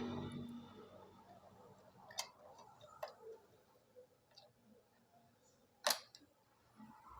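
A few sharp clicks and light taps over a faint background, the loudest about six seconds in.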